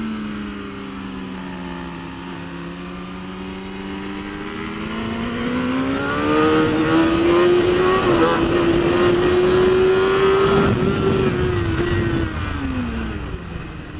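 BMW S1000RR inline-four superbike heard onboard at speed: the engine note sags, then climbs steadily under throttle and holds high for a few seconds before dropping away near the end as the rider rolls off, with wind rushing over the bike rising and falling along with it.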